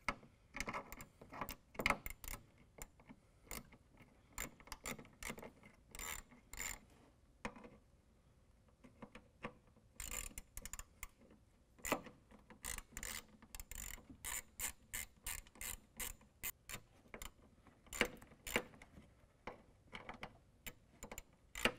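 Hand socket ratchet with a 7 mm socket clicking in quick runs as it backs out 7 mm screws from a plastic bumper support piece. The clicking thins out for a couple of seconds partway through, then picks up again.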